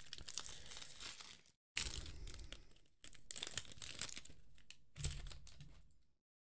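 Foil wrapper of a Topps baseball card pack crinkling and tearing as it is ripped open by hand, in several spells with short pauses between them. The sound cuts off suddenly a little before the end.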